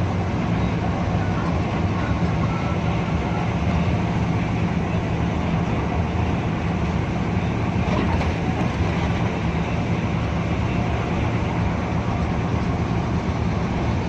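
Interior running noise of a 1997 Hino RK2 bus at speed, with the throttle held down on a long descent over a wet road: a steady low engine drone under a constant hiss of road noise.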